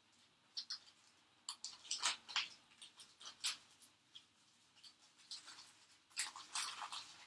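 Light, irregular clicks and small rustles of a fine metal necklace chain being handled and worked loose by hand, with a denser patch of rustling near the end.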